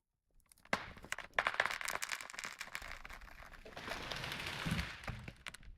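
A felled tree going over: sharp cracks of the wood splitting, a rush of branches crashing through the canopy, and a heavy thud near the end as it hits the ground.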